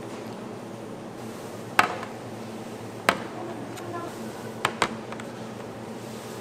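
Sharp clacks of clear plastic food tubs being handled and set down on a tray, four in all, the last two close together, over a steady kitchen hum.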